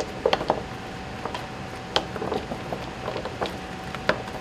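Frozen-solid pudding pucks knocking against one another and the tray as a gloved hand shifts them: a handful of sharp, separate clacks over a steady background hum.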